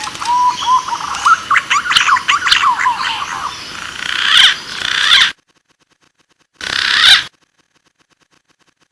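Green pigeon (punai) calls: a whistle gliding upward, then a rapid run of short rising and falling whistled notes that cuts off suddenly about five seconds in. After a silent gap comes a brief burst of the same calls, then silence.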